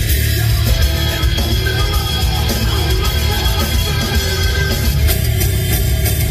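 Loud heavy rock music playing without a break.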